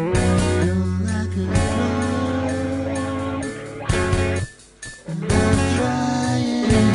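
Rock song in an instrumental passage: guitar lines over a steady bass. The band stops briefly about four and a half seconds in, then comes back in.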